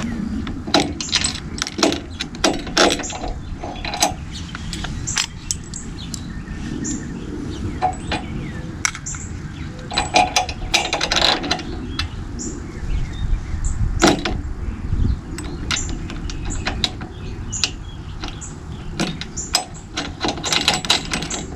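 Irregular metallic clicks and clinks of a boat buckle's mounting hardware being handled and fitted by hand, over a steady low rumble.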